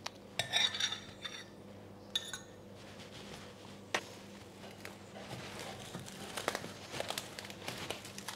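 A metal spoon clinking against a glass measuring jug a few times, each clink ringing briefly. Then plastic cling film crinkles and crackles as it is pulled and stretched over the jug.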